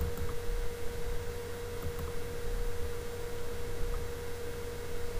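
Steady electrical hum in the recording: a single unbroken mid-pitched tone over a low rumble and faint hiss.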